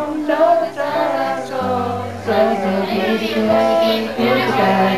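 A voice singing a slow ballad in Korean over instrumental backing with held low notes.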